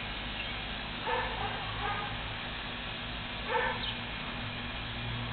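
A dog giving short whining yips a few times over a low steady hum.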